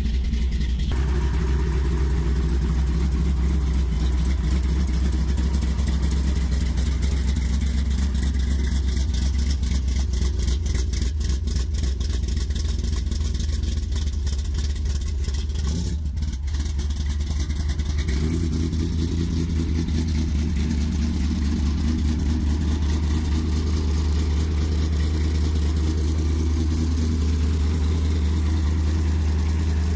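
451 stroker big-block V8 in a 1973 Plymouth Satellite idling steadily just after a cold start, running smoothly.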